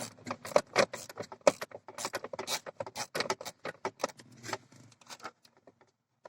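Ratchet clicking in quick, uneven strokes as an 8 mm bolt is backed out through a long extension and swivel; the clicking thins out and stops about five seconds in.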